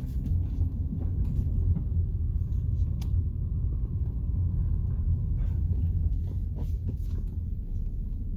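2002 Lexus GS300's inline-six engine running steadily, a low even rumble.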